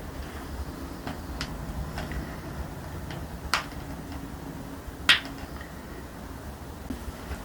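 Joints cracking under a chiropractic adjustment: a few faint clicks, then two sharp cracks about a second and a half apart, the second the louder, over a steady background hum.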